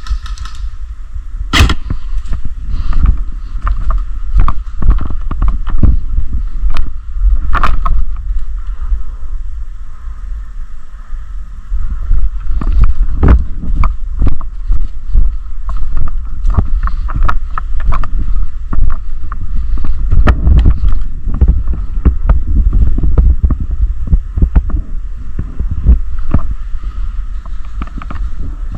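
Heavy rumble and irregular knocks from a body-worn action camera jostled as its wearer moves, with wind on the microphone. There is a sharp knock about a second and a half in and another near eight seconds.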